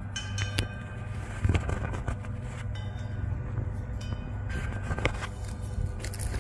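Footsteps crunching irregularly on gravel landscaping rock over a steady low rumble, with a few faint high ringing tones.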